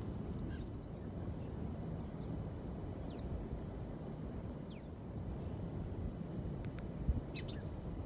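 Wind rumbling on the microphone, with a few faint, brief bird chirps, some falling in pitch.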